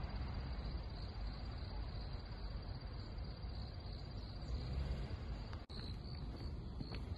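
Crickets trilling in one steady high note over a low outdoor rumble. After a moment's break a little past halfway, the trill comes in short pulses and a couple of faint footsteps sound near the end.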